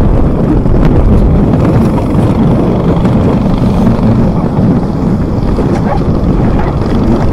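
Snowmobile engine running steadily as it travels over snow, with heavy wind buffeting the microphone.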